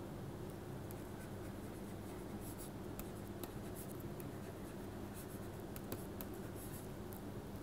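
Faint scratching and tapping of a pen stylus writing on a tablet surface, in short irregular strokes, over a steady low hum.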